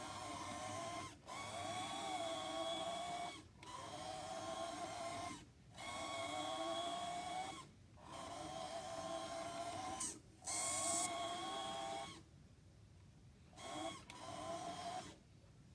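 Motor and gears of a 1975 Tyco Alco Century HO model locomotive whining as it runs back and forth on a test track, the pitch rising and falling with speed and cutting out for a moment about every two seconds as the direction is reversed. The motor runs after cleaning and lubrication following decades in storage, but still needs more work. A short hiss comes about ten seconds in.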